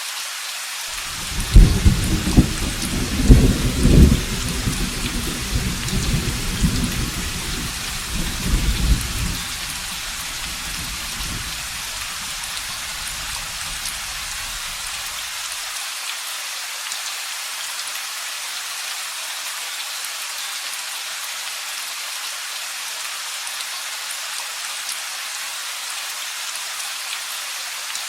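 Steady rain with a thunderclap about a second in: a few sharp cracks in the first few seconds, then a low rumble that rolls away and dies out over the next ten seconds or so, leaving only the rain.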